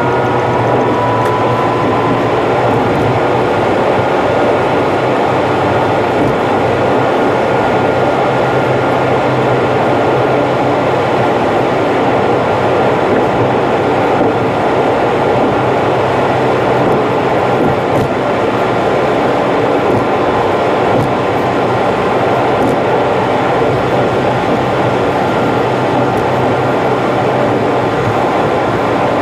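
Car driving on an expressway, heard as a steady rush of tyre, wind and engine noise played back at about three times speed, so it sounds higher and denser than real time. A tone rises briefly at the start.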